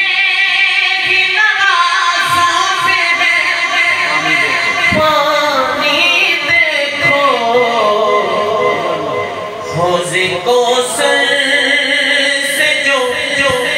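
A man singing a Muharram manqabat, an Urdu devotional lament, unaccompanied, in long held notes that waver and bend in pitch.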